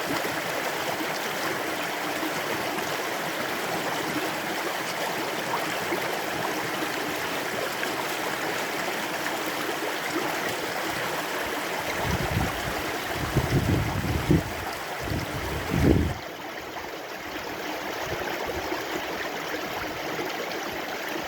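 Stream rapids rushing steadily. A few loud low rumbles come about two-thirds of the way through, then the water sound turns abruptly a little quieter and duller.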